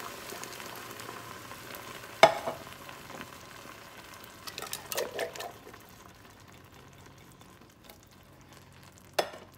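Beans and onion sizzling in hot oil in a pot, the sizzle fading gradually as the cold canned beans cool the pan. A sharp knock about two seconds in, a few small clatters near the middle and another knock near the end.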